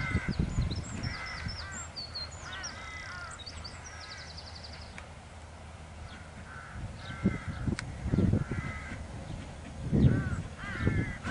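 Birds calling: a run of short, harsh, repeated calls throughout, with small birds twittering high above them in the first half. Irregular low rumbles rise and fall underneath, loudest in the second half.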